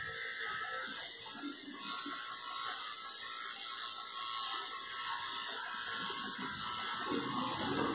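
Electric grooming clipper running with a steady high whine while shaving a cocker spaniel's coat. The sound becomes fuller and lower near the end.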